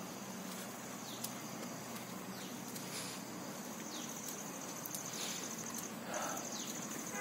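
Crickets trilling steadily at a high pitch, the trill turning into a fast, even pulsing about halfway through, with short falling chirps repeating every second or so over it.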